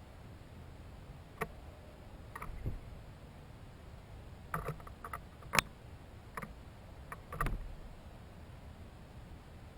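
Scattered light knocks and clicks, about ten at irregular intervals, the sharpest just past halfway through, over a faint steady background.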